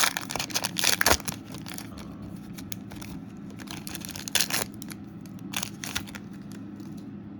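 Chrome trading cards being handled and flipped through: a run of short, sharp rustles and flicks, loudest in the first second or so and sparser after.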